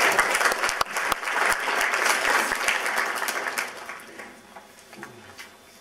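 Audience applause, many hands clapping together, loud at first and then thinning out into a few scattered claps and dying away over the last two seconds.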